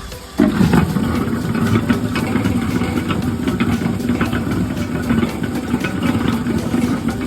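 Sweet potato peeling machine switching on about half a second in and then running steadily, its motor humming under a constant light clatter.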